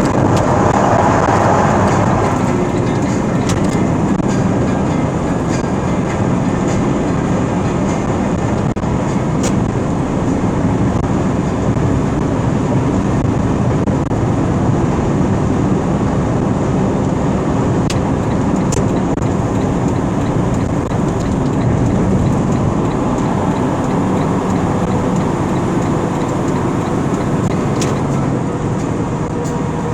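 Steady engine and road noise of a vehicle driving at highway speed.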